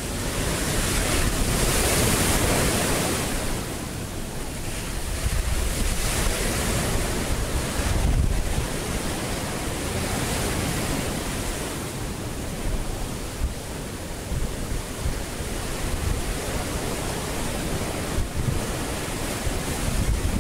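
Ocean surf breaking and washing on a beach, swelling and easing, with wind buffeting the microphone.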